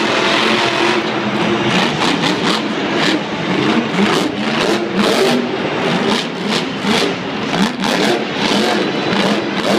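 Monster truck engines revving hard again and again across an indoor arena, their pitch rising and falling in quick surges.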